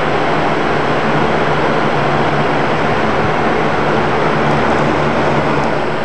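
Box fan running: a steady rush of air from the spinning blades with a low, even motor hum underneath.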